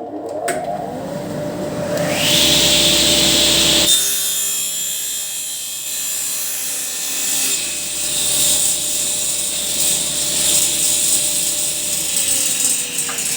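Electric circular saw spinning up and cutting through birch plywood, a hiss of cutting over the steady motor tone, loudest about two to four seconds in. Near the end the motor is switched off and its pitch falls as the blade winds down.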